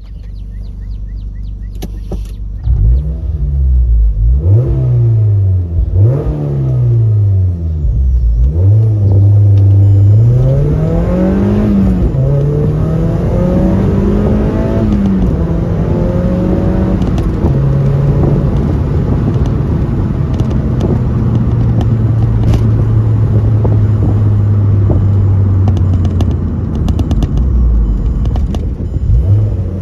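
Mazda MX-5 NC1 four-cylinder engine through a catless header and Yonaka muffler: three quick revs, then it pulls up through the gears with the pitch climbing and dropping at each shift, and settles into a steady cruise.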